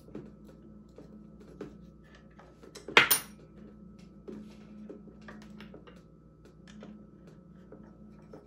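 Light metallic clicks and knocks of the scooter's front axle hardware being handled and seated in the suspension fork, with one loud, sharp metal clink about three seconds in.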